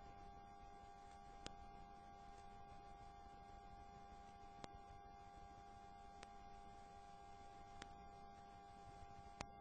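Near silence: a faint, steady electrical hum with a faint click every second or so.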